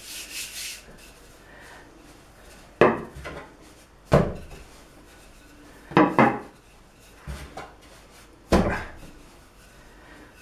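Wooden rolling pin rolling out yeast dough on a wooden tabletop: quiet rubbing broken by about six sharp wooden knocks a second or two apart as the pin knocks against the table.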